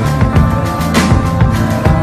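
Loud background music with a steady drum beat.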